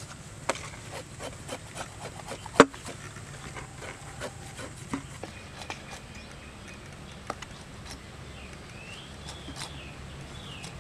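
Knife knocking and scraping on raw ribbon fish on a metal tray: a quick run of sharp knocks in the first few seconds, one much louder than the rest about two and a half seconds in, then scattered knocks.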